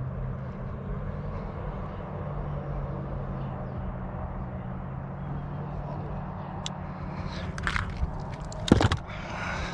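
Steady low hum of a fishing boat's motor, with a loud thump near the end.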